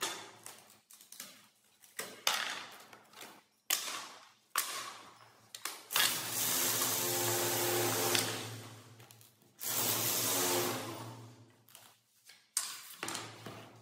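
Loose plywood strips clacking and knocking as they are picked up and laid down on a plywood sheet. Around the middle, a motor runs in two short spells of steady whirring, the loudest sound.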